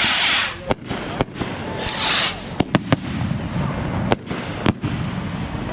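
Consumer fireworks going off: a run of sharp bangs and pops, about seven reports spread irregularly, with two hissing, crackling bursts, one at the start and one about two seconds in.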